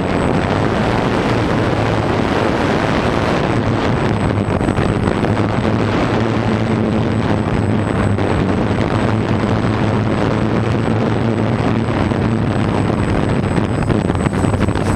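Multi-rotor camera drone's electric motors and propellers heard up close from the on-board camera, a steady loud whirring with a low hum under a wash of propeller noise.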